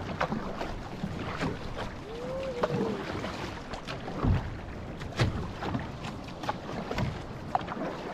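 Outrigger canoe (va'a) being paddled: paddle blades splash into the water about once a second over rushing water and wind noise on the microphone.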